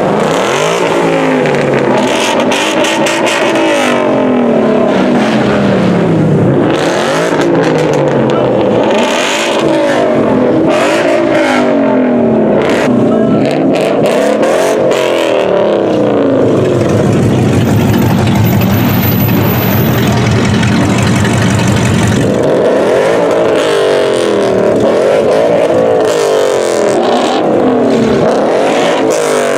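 A car engine revved hard again and again, its pitch sweeping up and falling back every couple of seconds; past the middle it is held at a steady high speed for about six seconds before the rev sweeps resume.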